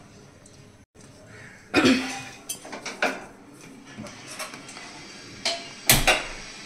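Metal pots and cooking utensils clattering on a gas stove: a handful of separate knocks and clinks, the sharpest one near the end.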